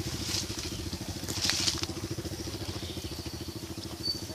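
Small motorcycle engine running with a steady, fast low putter while riding along a rough dirt track. A brief scraping rattle comes about a second and a half in.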